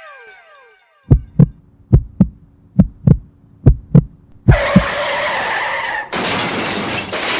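Heartbeat sound effect, pairs of low thumps about once a second. Partway through it gives way to a loud, steady skidding screech and hiss, like a car's tyres sliding.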